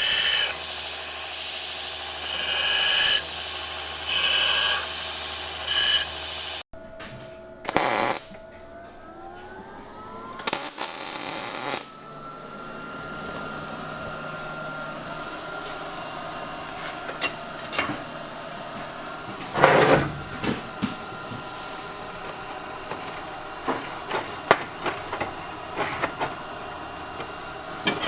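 Power tools working steel: a machine cutting in repeated noisy stretches over a steady low hum, then, after an abrupt break, a motor whine rising in pitch and settling into a steady run, with scattered metal clicks and knocks and one louder burst.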